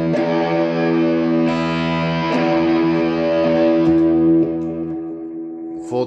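Electric guitar played through an EarthQuaker Devices Life Pedal with its boost engaged, into an Orange amp: distorted chords ringing out with long sustain, fading away over the last second and a half.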